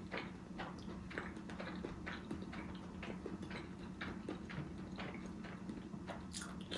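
Close-up chewing of spaghetti with hot dog: soft, wet, irregular mouth clicks several times a second.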